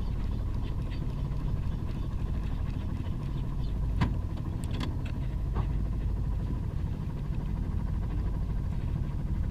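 Boat engine running steadily at low revs, with a few faint clicks about four to six seconds in.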